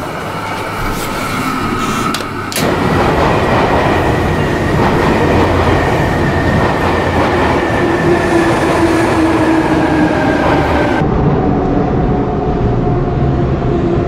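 A loud, steady mechanical rumble and rattle like a train or subway car running, with a faint whine slowly falling in pitch. It gets suddenly louder about two and a half seconds in and changes abruptly near eleven seconds, like a spliced sound effect.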